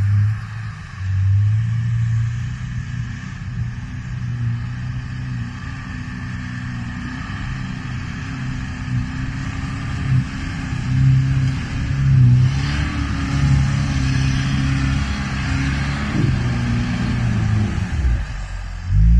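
Off-road vehicle's engine running, its revs rising and falling, with a stretch of rushing noise partway through.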